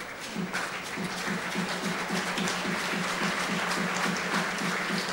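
Stadium crowd applauding and clapping over a rhythmic beat that starts at about one a second and quickens to three or four a second, the clapping swelling as the beat speeds up.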